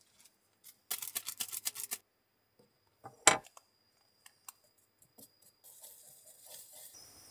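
Clear plastic zip bag crinkling quickly for about a second as medicine packets are pulled out, then one sharp knock a little after three seconds in, the loudest sound. Small taps follow, and near the end a wooden stick scrapes softly in a wooden spoon.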